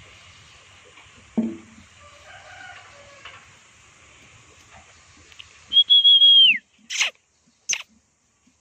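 A single high whistle, held steady for about a second and then falling away, followed by two sharp clicks close together.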